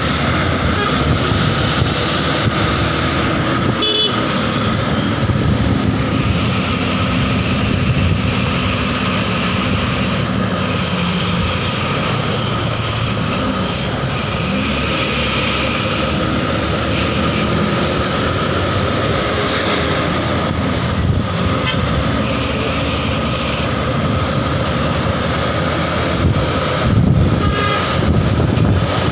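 Basuri musical air horn of a Mercedes-Benz intercity bus tooting over steady engine and road noise in traffic.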